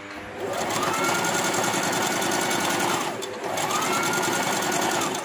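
Electric home sewing machine stitching at speed, its motor whining up as it starts and down as it stops. It pauses briefly about three seconds in, then runs again.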